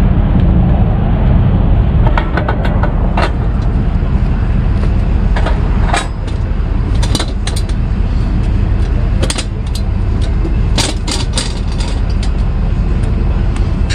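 Tow truck running: a steady low rumble, with scattered sharp clicks and knocks over it.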